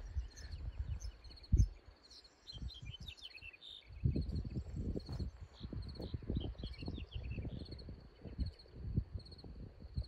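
Crickets chirping in a steady, high, pulsing trill, with birds twittering in short chirps from about two to seven seconds in. Underneath are low rustles and thumps, with one sharp thump about one and a half seconds in.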